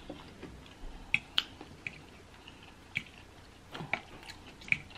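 A person chewing a mouthful of soft food (cornbread dressing with cranberry sauce, mac and cheese) close to the microphone. Quiet wet chewing is broken by a handful of short, sharp clicks spread across the few seconds.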